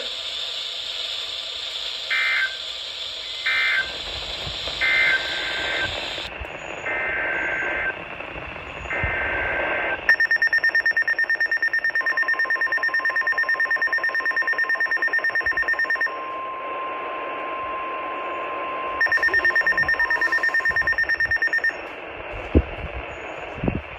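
Emergency Alert System data bursts from a weather radio: three short two-tone warbling bursts about a second apart, then three longer ones. They are followed by a loud pulsing electronic alert beep and a long steady alert tone, marking the end of one warning and the start of the next.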